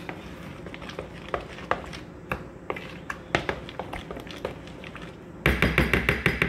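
Metal kitchen utensil knocking and clinking against a dish: scattered light clicks at first, then, about five and a half seconds in, a louder, fast, even run of strokes.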